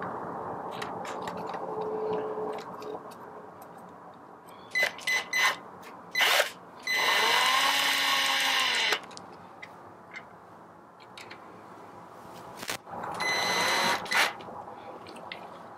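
Electric screwdriver driving machine screws into a coffee grinder's gearbox housing. It runs in two bursts of about two seconds, with a whine that rises and falls, among a few short clicks of parts being handled.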